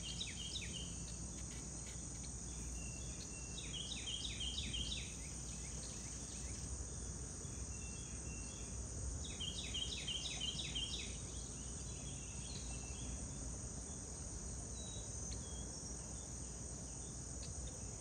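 Steady high-pitched drone of insects in the riverside vegetation, with a bird singing quick series of repeated notes, loudest about 4 and 10 seconds in, over a low steady rumble.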